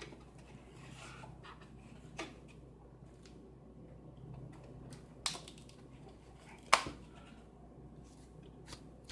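Low room hum with a few sharp handling clicks and knocks, about three in all, the loudest about seven seconds in.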